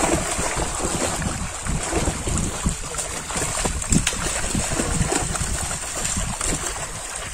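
Fish thrashing and splashing in a net crowded into shallow pond water, in irregular bursts. Wind rumbles on the microphone throughout.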